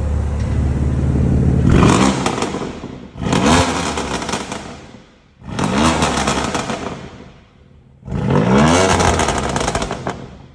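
BMW M2 Competition's twin-turbo inline-six idling, then revved four times in quick blips, each rising and falling back to idle, heard through its exhaust.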